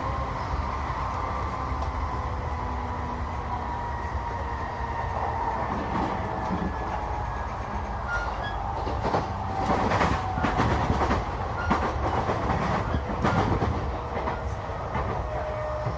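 Electric commuter train running, heard from inside the carriage: a steady rumble with a faint whine drifting in pitch. From about nine seconds in, a louder stretch of rapid wheel clicks and clatter lasts several seconds.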